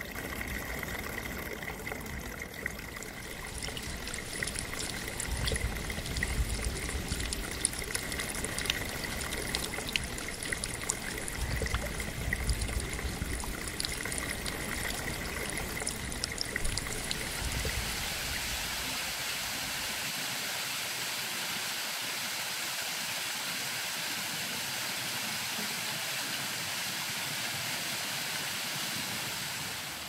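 Water from garden waterfalls splashing and trickling into ponds, with scattered drips over a low rumble at first; about halfway through it changes to a steadier, even hiss of falling water.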